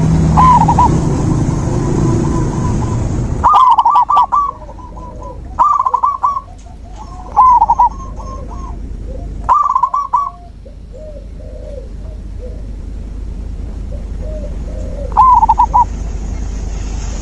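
Zebra doves (perkutut) cooing: a loud bird gives about six short, staccato coo phrases at irregular gaps, while fainter, lower-pitched coos from other doves fill the pauses. A low background rumble in the first few seconds cuts off suddenly.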